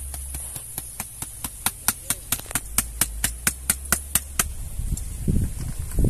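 A rapid run of sharp taps, about five a second for some four seconds, as a plastic colander is knocked against a metal pot of cooked rice. Low rumbling handling noise follows near the end.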